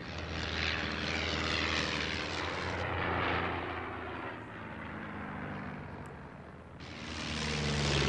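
Propeller aircraft engine droning steadily, swelling louder in the first seconds, easing off mid-way and swelling again near the end.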